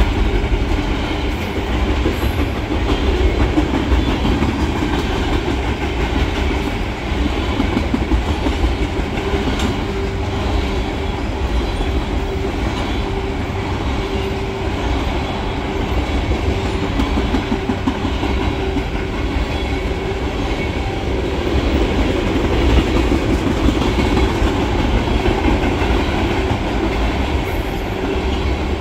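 Norfolk Southern freight train of tank cars rolling past, a steady heavy rumble of steel wheels on rail with an uneven clickety-clack of wheels over the rail joints.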